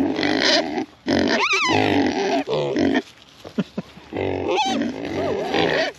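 Idaho pasture pigs vocalizing close up: long drawn-out grunts, with a high rising-and-falling call about a second and a half in and a short lull about halfway through. The pigs are hungry and waiting to be fed.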